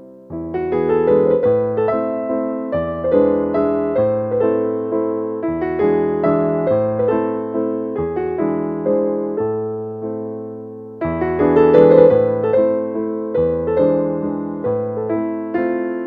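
Background piano music: a gentle melody of struck, fading notes over chords and bass notes. It thins briefly about ten seconds in, then comes back in fuller.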